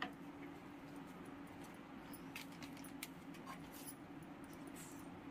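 Faint scraping and a few soft ticks of a spatula stirring thick pav bhaji in a frying pan, over a steady low hum.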